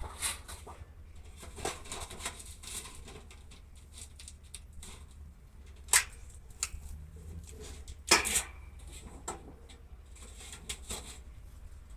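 Irregular light knocks and clicks, a few of them louder, over a steady low hum.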